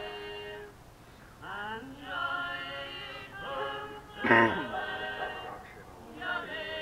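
Music with singing voices: long held notes and sliding pitches, with one louder sung note about four seconds in.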